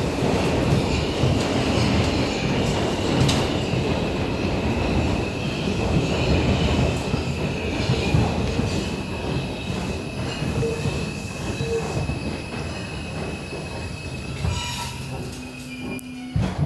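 R142 subway car braking into a station: the rumble of wheels on rail dies away slowly under a steady high squeal from the wheels and brakes, and a sharp clunk near the end as the train comes to a stop.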